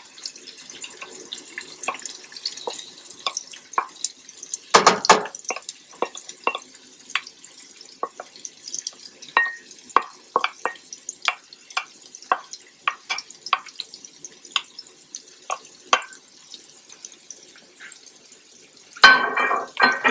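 A wooden spoon taps and scrapes diced onion, bell pepper and garlic off a plastic cutting board into a pan of hot oil, a rapid string of sharp knocks over a faint sizzle. There is a louder clatter of spoon on board and pan about five seconds in and again near the end.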